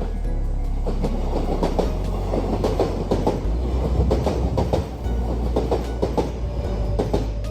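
Kintetsu Minami-Osaka Line electric train running past, its wheels clacking quickly and irregularly over the rail joints, over a low rumble.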